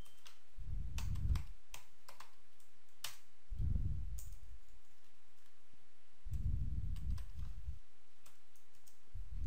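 Typing on a computer keyboard: scattered, irregular key clicks, with a few soft low rumbles in between.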